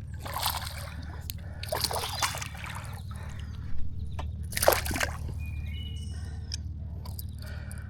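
Water splashing and sloshing in a creek in several irregular bursts, the loudest about four and five seconds in, over a steady low rumble. Short bird chirps follow near the end.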